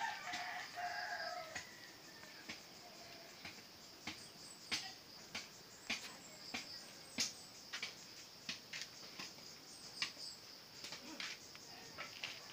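A brief pitched animal call in the first second and a half, then scattered sharp clicks over a steady high-pitched hum.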